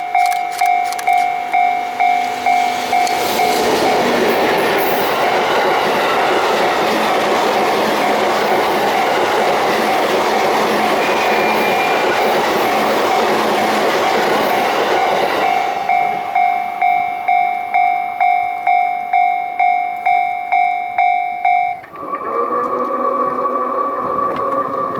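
Japanese level-crossing warning bell ringing, an electronic two-tone ding repeating a little under twice a second. About 3 s in, the EF64 electric locomotive hauling the unpowered E235-series train set rolls through the crossing, its wheels and running gear drowning out the bell for about 12 seconds, after which the bell is heard alone again. Near the end the bell stops and a steady pitched tone takes over.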